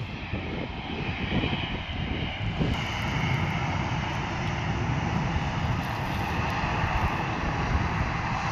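Jet engines of a Boeing 737 airliner running steadily on the runway, a continuous rushing hiss heard at a distance, over a low uneven rumble of wind on the microphone.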